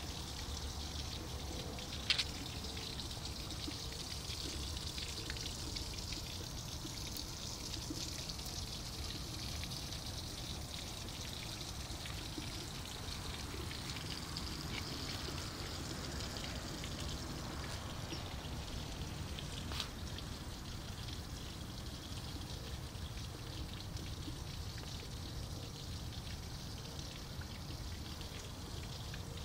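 Steady pouring and trickling of water from a park fountain, with a sharp click about two seconds in.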